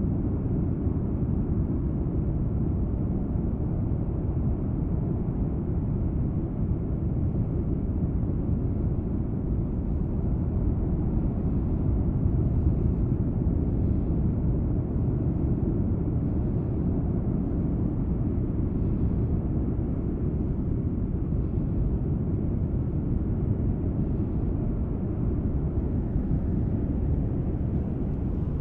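Kīlauea lava fountain sending up a steady, deep, jet-like roar with no breaks.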